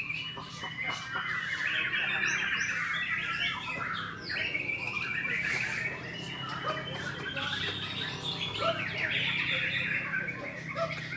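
White-rumped shama (murai batu) singing without a break: a fast, dense stream of rapidly changing high notes and stuttering runs, the 'batuk' cough-like and 'tembakan' shot-like notes prized by Indonesian songbird keepers.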